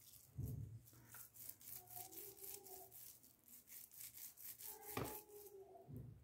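Faint rubbing and squishing of oiled hands pressing and rolling minced fish kebab mixture into a log, a quick run of soft strokes, with dull knocks about half a second in and near five seconds.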